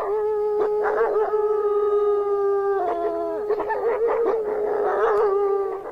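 Gray wolves howling together: one long howl held at a steady pitch throughout, with other wavering howls overlapping it, one of them briefly a little lower about three seconds in.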